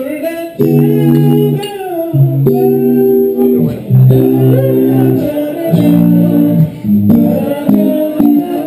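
Electric guitars played live through amplifiers: a run of held chords, changing about once a second.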